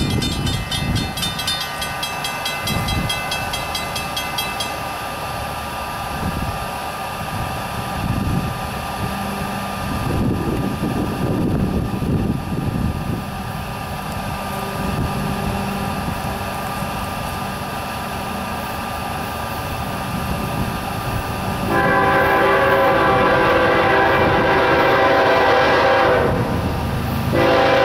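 Air horn of an approaching freight train's lead diesel locomotive, a GE ES44AC, sounding for the grade crossing. After a low rumble, a long chord-like blast starts about 22 s in and lasts about four seconds; a second blast begins after a one-second break near the end.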